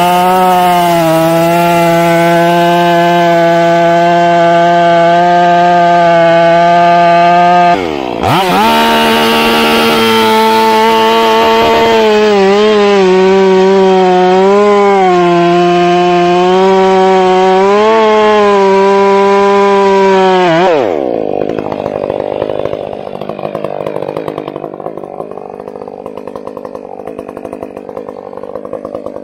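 Two-stroke chainsaw running at full throttle, cutting wood, its pitch wavering as the chain loads in the cut. It dips briefly about eight seconds in, then comes off the throttle about two-thirds of the way through, and the sound falls away to a much quieter rough noise.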